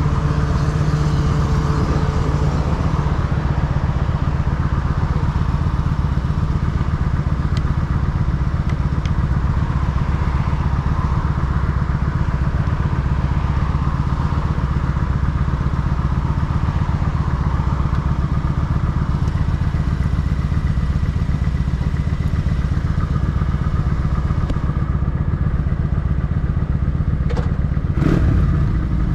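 Kawasaki Vulcan 900 Custom's V-twin engine idling steadily, with traffic passing on the cross street. A short, louder thump comes near the end.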